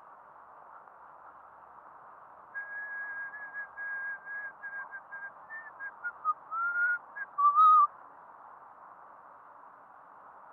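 Whistling over a steady hiss: a run of short notes on one high pitch, then lower notes that glide and waver, the last the loudest.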